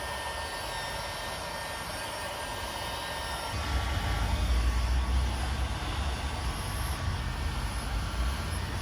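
Heat gun running steadily: an even hiss of air with a fan-motor whine. About three and a half seconds in, a low rumble joins it.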